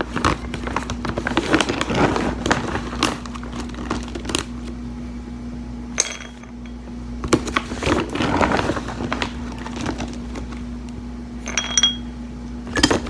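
Irregular knocks and clinks of small hard objects being handled, over a steady low hum, with a couple of brief ringing clinks.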